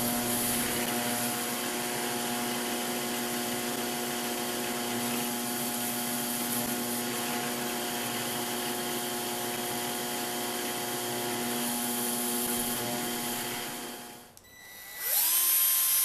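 Benchtop drill press running steadily with a motor hum while drilling small pilot holes in plywood, winding down about 14 seconds in. Near the end a cordless drill spins up with a rising whine that settles to a steady pitch as it runs into a pilot hole to form the screw threads.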